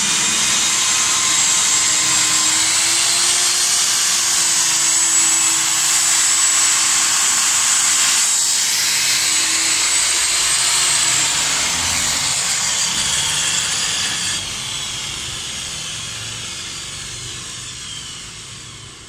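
Electric diamond core drill running with a steady high whine, then winding down: about eleven seconds in the whine starts to fall in pitch and the sound fades gradually over the remaining seconds.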